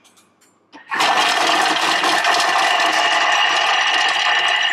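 Vorwerk Thermomix chopping fresh garlic at speed 5: the blade motor starts about a second in with a loud, steady whir.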